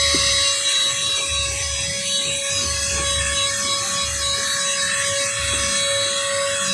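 Cordless handheld car vacuum cleaner running with a steady whine, its nozzle rubbing and scraping over the car's interior.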